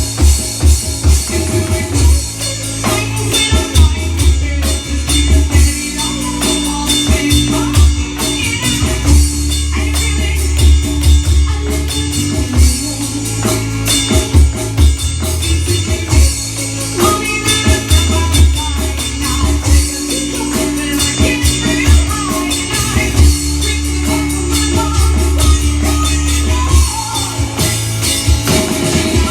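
Drum kit played along to a recorded rock song with singing and guitar, keeping a steady beat.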